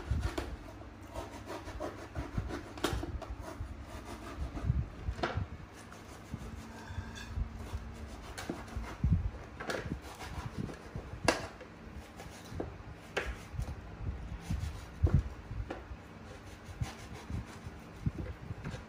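A knife sawing and slicing through the thick rind and pith of a large grapefruit (pomelo), a scraping, rubbing sound broken by scattered sharp clicks and knocks.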